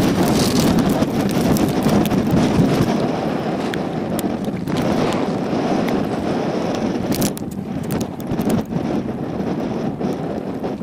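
Strong wind buffeting the microphone, a steady rushing noise that eases a little in the second half, with a few light clicks.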